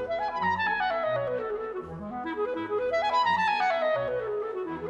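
A clarinet plays fast scale runs over a string orchestra. Twice it climbs quickly and then steps back down note by note, while the cellos and basses hold low notes beneath it.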